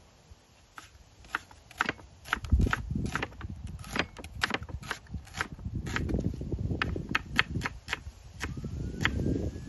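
Chef's knife slicing an onion and striking a wooden cutting board in quick, uneven strokes, about three or four a second, over a low rumble.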